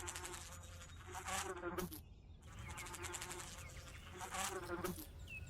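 An animal calling repeatedly, in short pitched calls about once a second.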